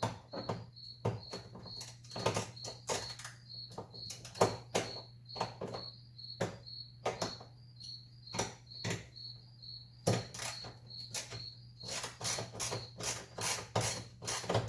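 Ratchet wrench with an 8mm socket being worked back and forth on the dash's defrost-duct fasteners, a steady run of clicks about two a second that becomes quicker and more regular near the end. Crickets chirp steadily behind it.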